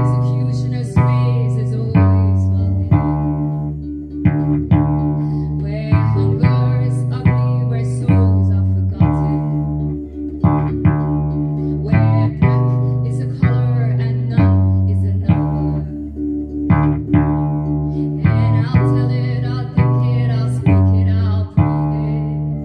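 Octave ukulele tuned like a bass guitar, its low string dropped to D, plucking a line of low bass notes in the key of D, about one to two notes a second, each ringing and fading before the next.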